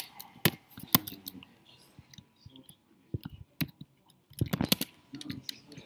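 Computer keyboard typing: scattered single key clicks, then a quick run of keystrokes about four and a half seconds in.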